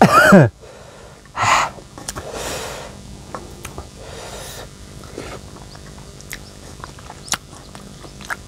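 A man's loud cry falling steeply in pitch, then sharp hissing breaths drawn and blown through the mouth, the reaction of someone burning from chili-hot sambal; a few small mouth clicks near the end.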